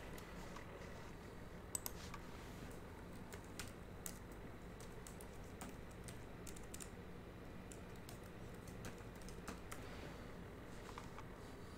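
Faint computer keyboard typing: scattered keystrokes entering a username and password at a login prompt, over a low steady hum.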